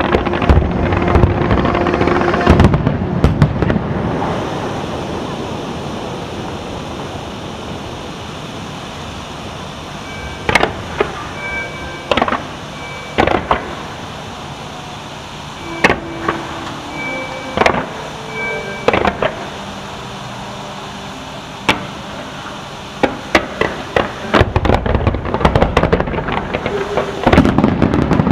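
Fireworks bursting: a dense crackling volley at first, then a lull with scattered sharp bangs a second or two apart, building again to a rapid barrage near the end.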